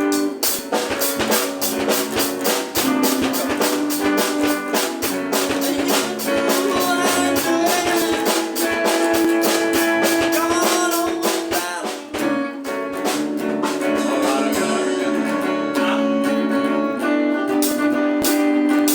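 Live band playing: guitar over a steady drum-kit beat, with a brief drop in the playing about twelve seconds in.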